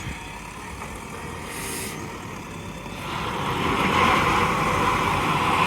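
JCB 3DX backhoe loader's diesel engine running, with a brief hiss about a second and a half in. It grows much louder about three seconds in.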